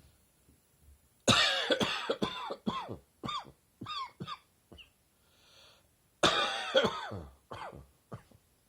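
A person coughing in two fits, brought on by a throat and chest tickle from summer allergies. A loud cough about a second in leads a run of shorter, hacking coughs. A breath is drawn in, then a second loud fit tails off into a few smaller coughs near the end.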